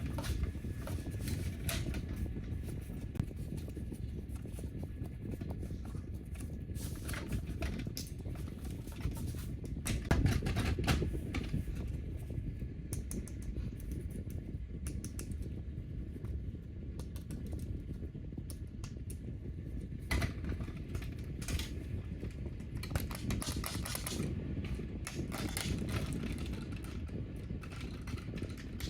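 Irregular clicks and rattles of plastic toy parts being handled, over a steady low hum.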